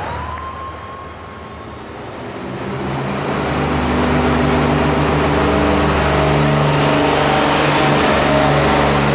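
International hot farm pulling tractor's diesel engine running hard, building up over the first few seconds and then holding loud and steady at high revs.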